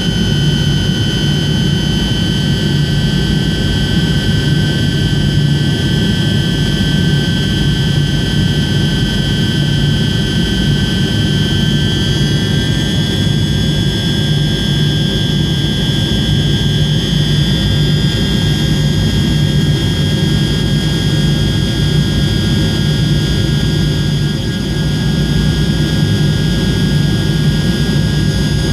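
Cabin noise of a Tupolev Tu-154M on approach: the steady roar of its rear-mounted Soloviev D-30KU-154 turbofans, a low rumble under a whine of several tones. About twelve seconds in, the engine whine rises slightly in pitch and then holds.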